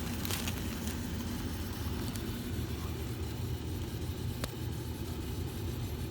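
Steady low hum of a running HVAC system's indoor air handler, with a light click near the start.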